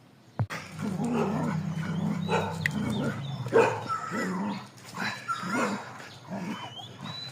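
Street dogs barking and growling: a steady low growl with sharp barks and yelps breaking in over it, the loudest bark about halfway through.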